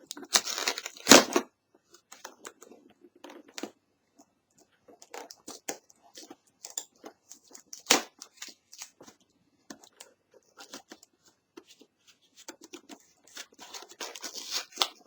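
Product packaging being handled and torn open: rustling, tearing and crinkling in irregular bursts, loudest about a second in, with a sharp snap near the middle and more crinkling near the end.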